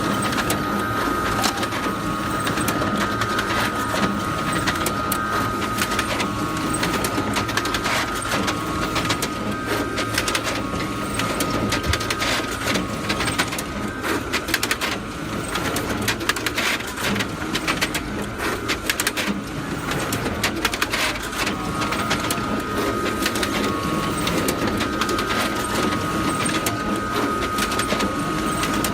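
Photocopier running continuously: a steady high whine over a dense, rapid mechanical clatter. The whine drops away for several seconds midway, then returns.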